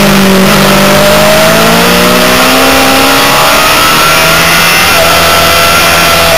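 Honda CBR600RR's inline-four engine at high revs, heard from an onboard camera over loud wind rush. The engine note dips slightly, then climbs steadily for about three seconds as the bike drives out of a corner, then holds high.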